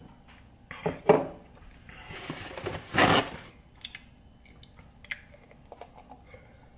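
Thick blended protein shake poured from a blender jar into a drinking glass; the pour is loudest about three seconds in. Two sharp knocks of the glass and jar come about a second in, and light clinks follow the pour.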